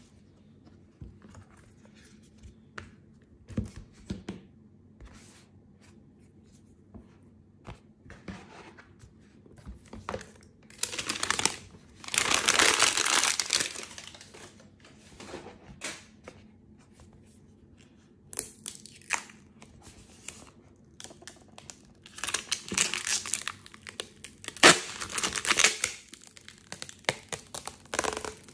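Clear plastic wrap and protective film being handled, crinkled and peeled off a tablet case, with small taps and rustles in between. There are two louder stretches of crinkling, one in the middle and one near the end.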